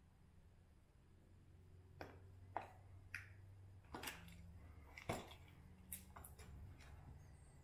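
Light plastic clicks and knocks from a Jeep fender and its clips being handled, about seven in all, spread irregularly over a few seconds after a quiet start.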